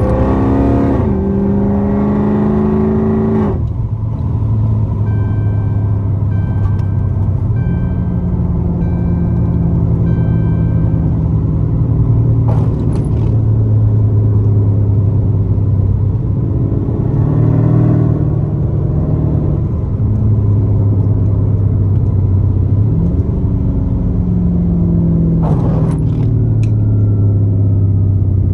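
Swapped 392 (6.4-litre) HEMI V8 in a Dodge Charger heard while driving: the revs fall away in the first few seconds, then it drones steadily, picking up briefly twice in the second half. A warning chime dings repeatedly for several seconds a few seconds in, the car's seatbelt warning, set off because the new seat is not wired to the harness.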